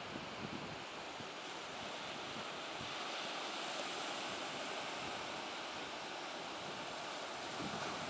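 Surf washing onto a sandy beach: a steady rush of waves, with some wind noise on the microphone.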